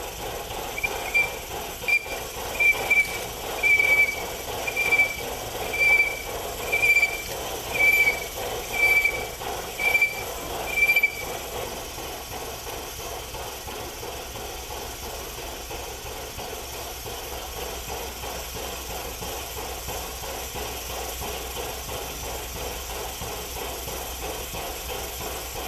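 Steam train at a station: a high squeal repeats about once a second for roughly the first eleven seconds, then stops, leaving a steady hiss.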